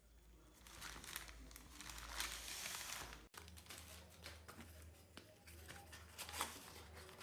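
Plastic packaging crinkling and rustling as it is handled and opened, with scattered small clicks and crackles, over a low steady hum.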